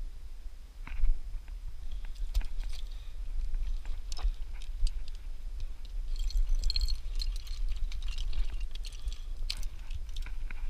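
Irregular crunches and clicks of hiking boots stepping on rock and loose stones, busiest in the second half, over a steady low rumble of wind on the camera microphone.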